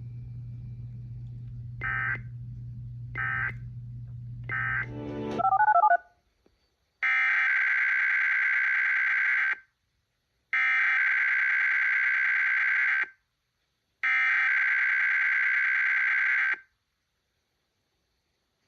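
Emergency Alert System digital data bursts. First come three short end-of-message bursts about a second and a half apart over a steady low hum, then a brief rising squawk as that recording cuts off. After a moment of silence come three long, buzzy SAME header bursts, each about two and a half seconds with a second's gap, announcing the next alert.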